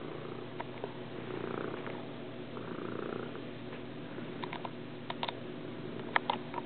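Domestic cat purring steadily close up, swelling and easing with its breathing. A few sharp clicks come near the end.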